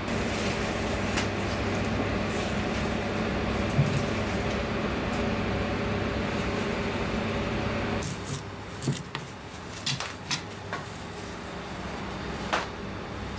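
Steady background hum of a food stall's kitchen, which drops away about eight seconds in, leaving a few sharp clicks and knocks of utensils and containers being handled.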